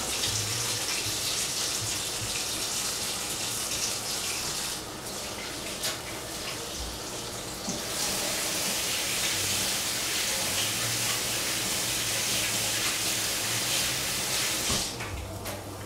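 Water running from a kitchen tap as hands are rinsed of the onion smell. The flow drops away for about three seconds about five seconds in, then runs again and stops shortly before the end.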